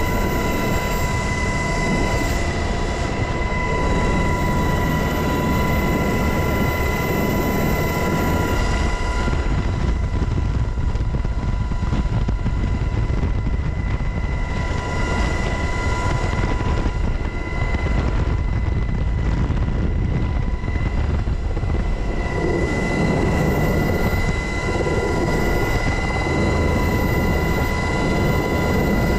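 UH-60 Black Hawk helicopter in flight, heard from inside its open-door cabin: steady, loud rotor and engine noise with a high, constant whine running through it.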